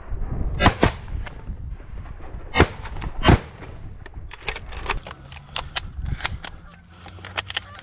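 Shotgun shots fired at birds in the air: a quick pair about a second in, then two more single shots, the last the loudest. A run of quicker, fainter cracks and clicks follows.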